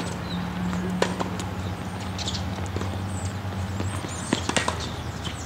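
Tennis balls being struck and bouncing during a rally on a hard court: several sharp, hollow pops at irregular intervals. A steady low hum runs underneath.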